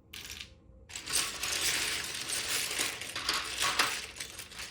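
Loose plastic LEGO pieces clattering and rattling as a hand rummages through a pile of them. There is a brief clatter at the start, then dense, steady clattering from about a second in.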